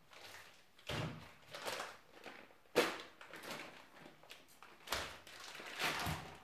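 Vacuum-pack plastic being cut open and pulled off pieces of cured venison: several bouts of crinkling plastic with handling knocks, the sharpest a short knock nearly three seconds in.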